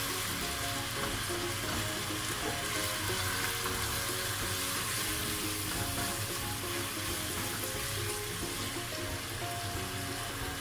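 Minced beef, tomatoes and spices sizzling steadily in a hot pot while being stirred with a spoon, with soft background music.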